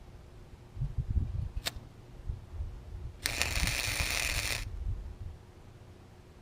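A welding arc crackling for about a second and a half in the middle: one dot of a stitch weld. A short snap comes before it, and low bumps of handling run throughout.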